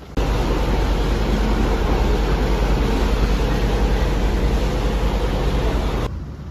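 Steady loud rumble and rushing noise of a moving vehicle, cutting in just after the start and cutting off abruptly about six seconds in.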